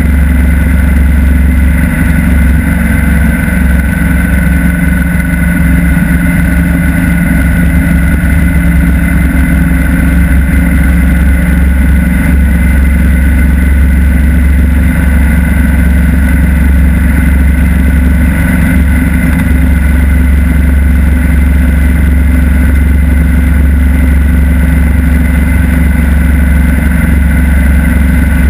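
Motorcycle riding at steady highway speed: the engine runs evenly with a steady low rumble, mixed with wind rush on the low-mounted microphone.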